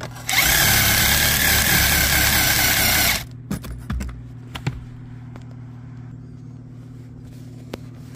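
Cordless drill running hard for about three seconds, driving a self-tapping screw into the vehicle's sheet-metal body for the amplifier's ground wire, then stopping. A few small clicks follow over a steady low hum.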